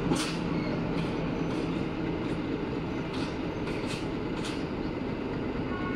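Duewag BR628 diesel multiple unit running on its diesel engines as it rolls away along the platform: a steady low drone, with several brief high-pitched hisses from the train scattered through it.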